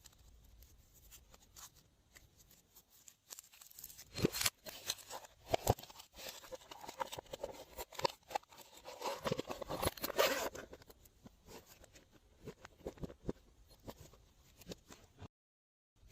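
Glossy slime being squished and stretched by hand: sticky popping and crackling clicks, densest from about four to ten seconds in, then sparser, with a moment of total silence near the end.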